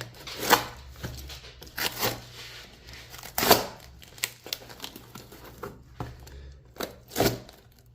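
A mailed package being torn open by hand: the packaging tears and crinkles in several short, irregular bursts with a few sharp snaps.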